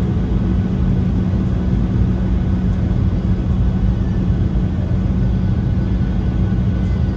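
Steady cabin noise of a Boeing 737-800 in flight on approach: a low rumble of the CFM56 engines and airflow with a constant hum underneath.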